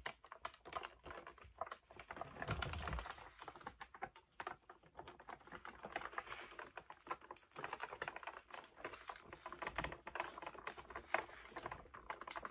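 Irregular light clicks and taps of hands handling and picking at the plastic parts of an animated Santa figure.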